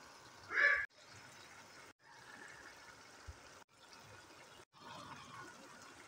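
Faint steady sizzle from a pan of pumpkin and meat cooking, broken into short stretches by abrupt cuts, with a brief louder sound about half a second in.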